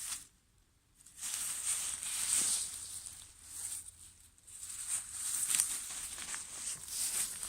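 Dry fallen leaves rustling and crackling as they are stirred underfoot, starting about a second in and coming in irregular waves.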